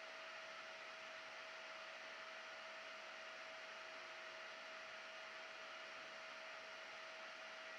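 Faint, steady whir and hiss of a cooling fan running, with a thin constant hum tone.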